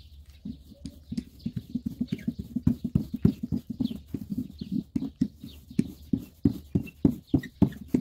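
Handheld wooden dough roller in a wire frame pushed quickly back and forth over pita dough on a wooden board, knocking and rattling against the board several times a second.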